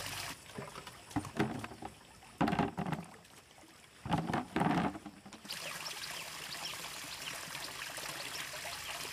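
Water trickling and flowing steadily, broken in the middle by three short bouts of splashing and sloshing.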